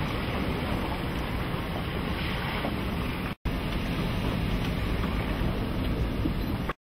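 Steady wind and sea noise with a low rumble, heard from aboard a boat at sea. It cuts out briefly twice, about halfway through and again near the end.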